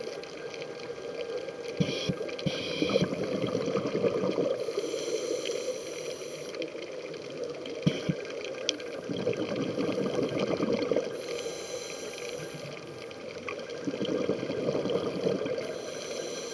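Scuba regulator breathing underwater: spells of hissing inhalation alternating with gurgling rushes of exhaled bubbles, with a few knocks.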